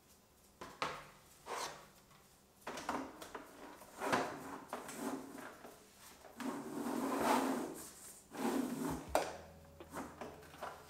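Housing and cylindrical filter of an LG PuriCare 360° air purifier being handled: a series of separate sliding scrapes, rubs and light knocks of plastic parts, the longest scrape about two-thirds of the way in.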